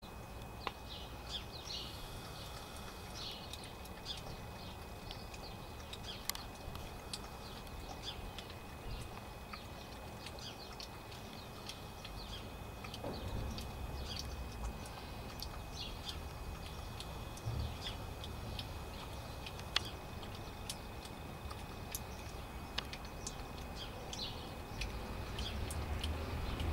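Garden birds chirping in short, irregular calls throughout, over a steady low rumble, with a few sharp clicks.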